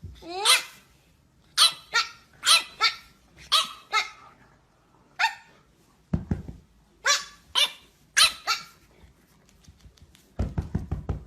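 A dog barking about a dozen times in short, separate, fairly high-pitched barks, in irregular bunches. Near the end comes a quick run of low thuds.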